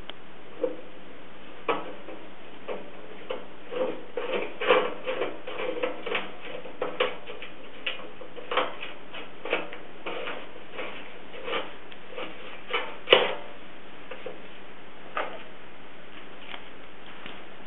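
Irregular small clicks and taps of metal hardware and the ceramic handle as acorn nuts and washers are worked by hand onto the threaded rod of a kiln lid handle, with one louder knock about 13 seconds in.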